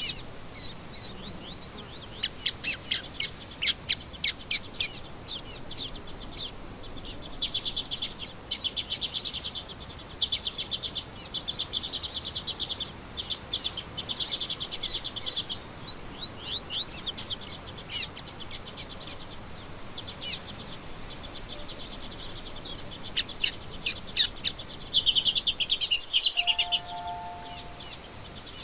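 Several songbirds singing and chirping: quick high sharp notes, with long fast trills through the middle and another burst of trilling near the end.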